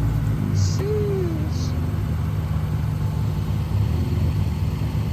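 Infiniti G35's VQ35 V6 engine idling just after a jump start. Its low note turns uneven and fluttering about half a second in.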